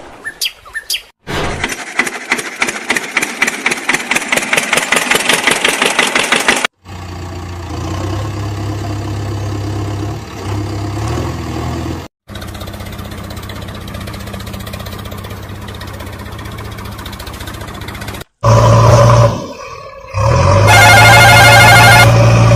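Dubbed-in engine sound effects for toy vehicles: about five seconds of fast, even pulsing like an engine cranking and revving, then a steady low engine running, cut off briefly twice. Near the end it gets louder, with a warbling high tone for about a second.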